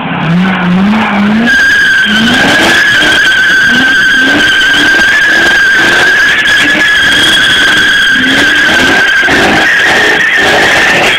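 V8-swapped BMW E30 doing a burnout: the rear tyres squeal in one steady high-pitched screech from about a second and a half in. Under it the V8 revs up and drops back over and over, about twice a second.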